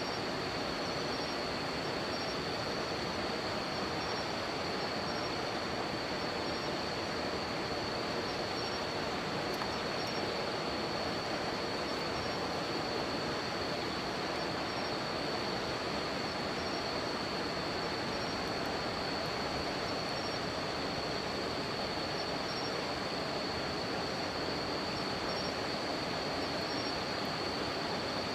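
A river rushing steadily, with insects singing over it: one continuous high trill and a higher chirp repeating at a regular pulse.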